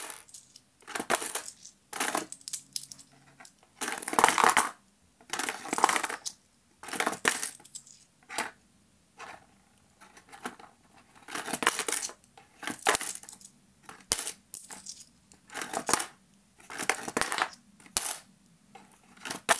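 Coins dropped one at a time into a homemade cardboard coin-sorting machine, each running down its cardboard ramp and clinking onto the coins already collected in its compartments. About a dozen separate drops, roughly one a second, with short pauses between.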